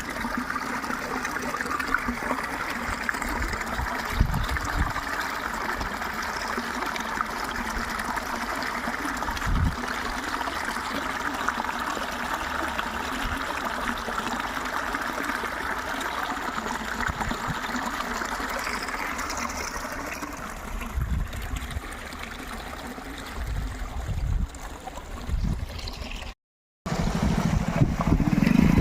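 Small stream of water trickling and flowing steadily, with occasional low thumps. The water fades after about twenty seconds, there is a brief cut to silence near the end, and a louder low hum begins just after it.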